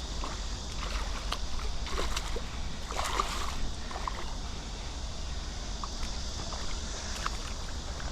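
Water sloshing, with a cluster of small splashes about three seconds in, over a steady low rumble.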